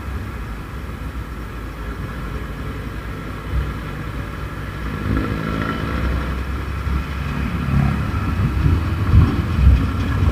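Low wind and road rumble from riding a motorcycle in traffic, with an engine note coming in about halfway through and growing louder toward the end.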